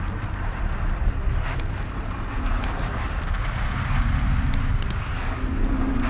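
Dark ambient soundscape: a steady low rumble with scattered faint clicks and knocks, and a faint low hum that grows a little near the end.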